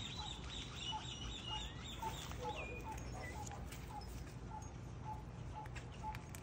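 Faint animal calls in a backyard: short clipped notes repeating about two or three times a second, with small bird-like chirps higher up, over a low rumble.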